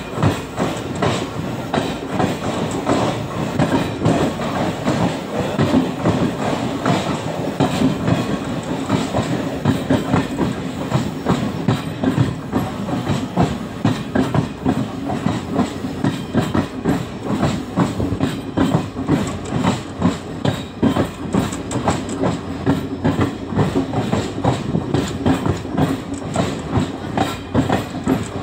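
Wheels of a moving express passenger train clattering over the rails, heard from on board, with a steady rumble and a constant run of clicks from the rail joints.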